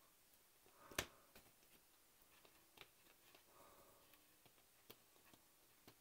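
Near silence broken by small handling sounds from model-kit work: one sharp click about a second in, then a few faint ticks from tools and small plastic parts.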